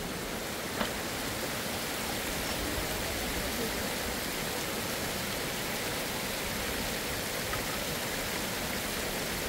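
Small mountain stream cascading down a rocky slope: a steady, even rush of running water.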